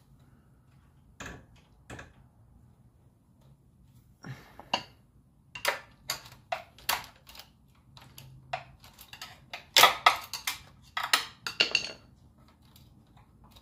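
Sharp, irregular metallic clicks and clinks of small parts being worked by hand inside an open Predator 212 crankcase while the governor is pried out without pliers, coming in clusters and loudest about ten seconds in.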